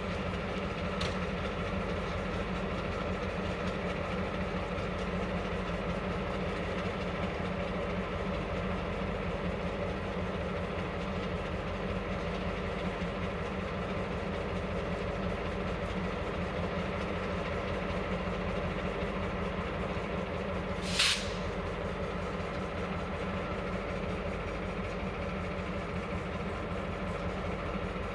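Diesel locomotive engine running steadily at idle with a constant drone. About three-quarters of the way through comes one short, sharp burst of air hiss.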